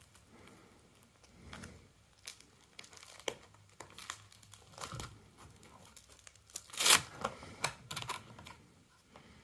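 Plastic binder pages of trading cards being turned, crinkling and rustling with scattered light clicks; the loudest page flip comes about three-quarters of the way through.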